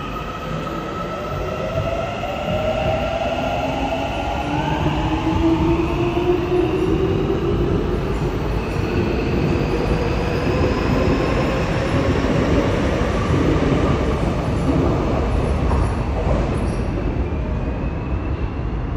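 A Seoul Subway Line 7 electric train pulling out of the station and accelerating away. Its motor whine rises steadily in pitch as several tones, over the rushing of its wheels, and fades near the end as the last car clears the platform.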